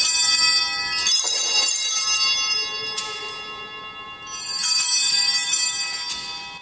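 Altar bells, a cluster of small Sanctus bells, shaken in repeated bursts of jingling that ring on and fade between shakes, signalling the elevation of the chalice at the consecration.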